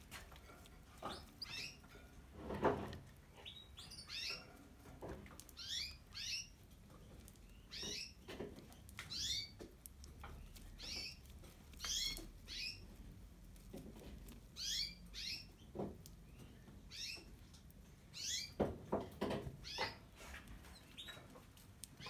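Canaries chirping: short calls that sweep in pitch, coming in twos and threes every second or two. A few soft knocks come through, one about three seconds in and a cluster near the end.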